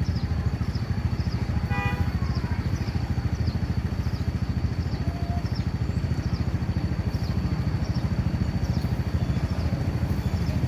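A vehicle engine running steadily with a fast, low pulsing throughout, and about two seconds in a single short honk of a vehicle horn.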